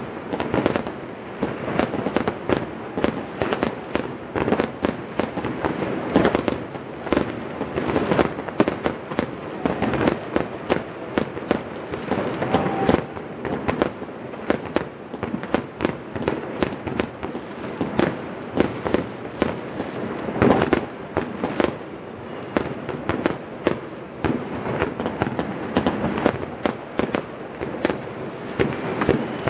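Fireworks and firecrackers going off all around in a dense, unbroken barrage of bangs and crackles, many each second. This is the city-wide New Year's Eve fireworks.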